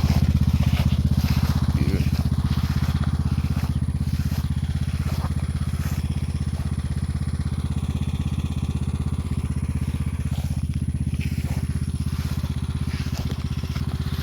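An engine running steadily at a constant speed, with a low, even pulsing throughout.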